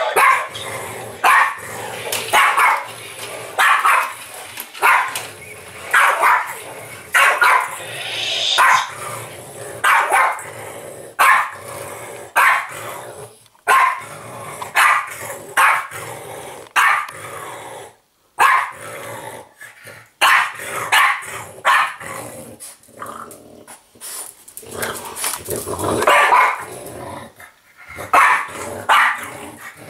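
French bulldog barking over and over in play, about one bark a second, with a couple of short lulls partway through before the barking picks up again.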